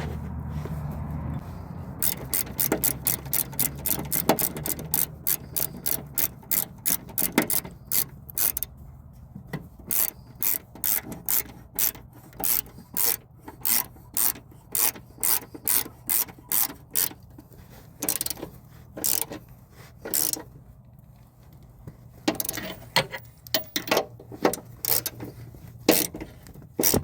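Hand ratchet wrench clicking as a bolt on the engine mount is turned. There is a long run of evenly spaced clicks, quicker over the first several seconds and then about two a second, with a brief pause a little after the twenty-second mark.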